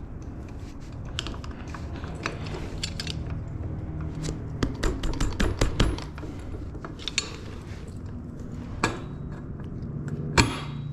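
Scattered metal clicks and knocks as a front wheel is lined up in a dirt bike's fork for the axle, with a sharper knock near the end.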